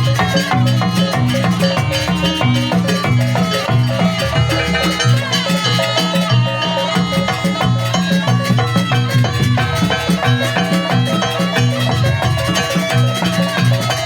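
Live jaranan accompaniment from a Javanese percussion ensemble: drums with tuned gongs and metallophones playing a dense, steady rhythm with a strong bass pulse.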